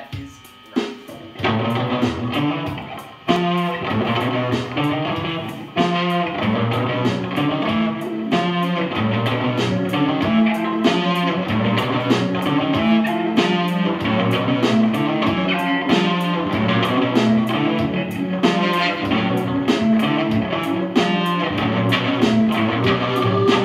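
Live electric guitar played through a small practice amp, with a keyboard playing along; the music starts about a second and a half in and fills out a few seconds later.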